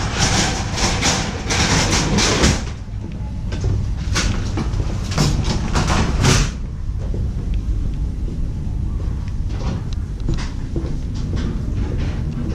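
Footsteps on a wooden plank floor, quick regular steps about three a second that come in two runs and then grow fainter, over a steady low rumble.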